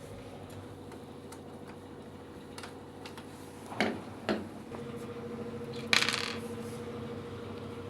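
Light metallic clicks and two sharp knocks of parts being handled, then a steady low electric hum starting about halfway, with a short rattling scrape after it.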